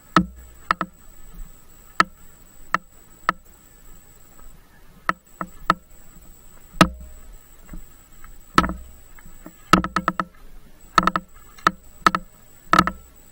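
A bicycle clattering over rough off-road ground, with sharp irregular knocks and rattles, some coming in quick clusters, over a low rumble. A faint steady high whine runs underneath.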